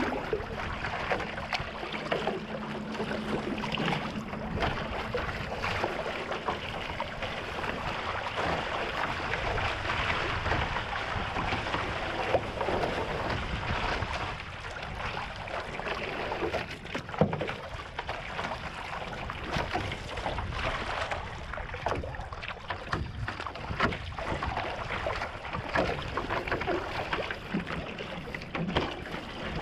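Water rushing and splashing along a one-person outrigger canoe under way, with the single-bladed paddle catching and pulling through the water in irregular strokes.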